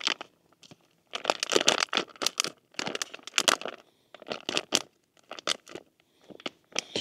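Plastic food packaging being handled and opened, heard as a run of short, sharp rustles coming in several clusters.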